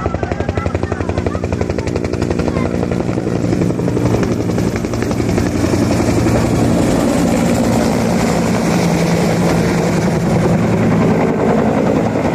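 Helicopter flying overhead, its rotor blades making a rapid, steady chop over the engine and turbine tones. The sound grows louder about a third of the way in.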